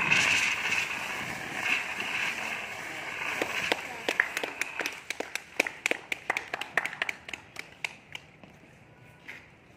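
Dry-powder fire extinguisher discharging through its hose with a loud, steady hiss that starts suddenly and fades over a few seconds as the fire is smothered. After that comes a quick run of sharp clicks, several a second, dying away.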